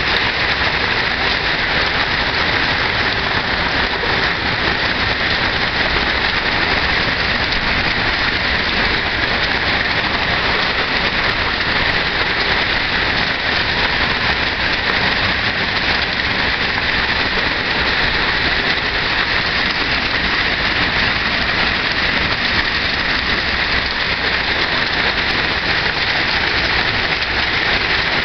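Heavy rain pouring down in a steady, unbroken downpour.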